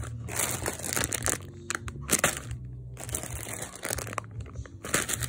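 Plastic candy packaging crinkling in several short bursts as it is handled and set down.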